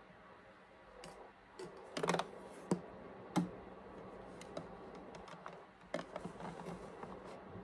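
Scattered light clicks and taps at irregular intervals from hands working at a home sewing machine's needle and presser foot, setting the fabric in place.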